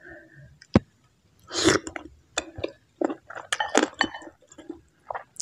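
Close-miked mukbang eating sounds: a sharp click just under a second in, then a loud wet slurp and a run of squishy chewing and small mouth clicks as soft food from a bowl of bakso aci soup with noodles is eaten.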